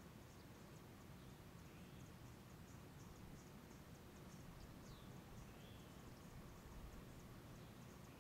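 Near silence: faint outdoor ambience, with rapid faint high ticking and a few soft chirps over a low rumble.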